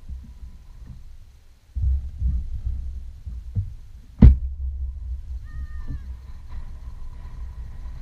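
A car door slams shut once about four seconds in, the loudest sound. A low rumble through the car body starts suddenly about two seconds in and carries on after the slam.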